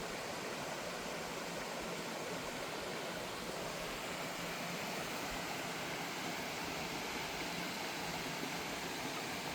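Small waterfall rushing: a steady, even roar of falling water.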